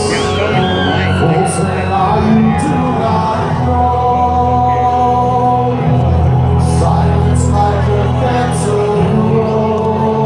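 Live rock-ballad music with a sung vocal over held, sustained instrumental notes, in a large hall.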